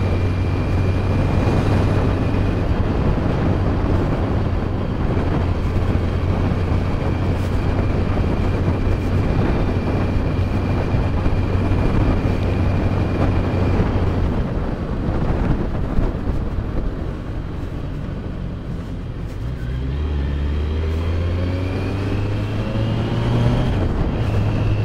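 Kawasaki Z900's inline-four engine running at steady cruising speed under wind rush. About fifteen seconds in the note drops as the throttle is eased. In the last few seconds the pitch rises again as the bike picks up speed.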